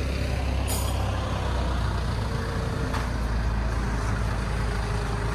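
Steady low drone of an engine running nearby, with a light click about a second in and another around three seconds.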